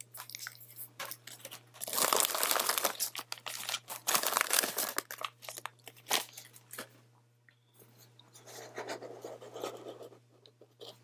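Crinkly foil and plastic toy packaging being handled and crumpled, in several rustling bursts with short pauses between, loudest in the first half.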